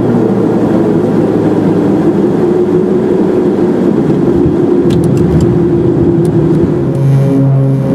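Twin PT6A turboprops of a Beechcraft King Air B200 heard from the cockpit: a steady propeller drone under a rough, uneven rumble while the aircraft is on a dirt strip. A few sharp ticks come about five seconds in, and near the end the rumble eases and the steady propeller drone stands out more clearly.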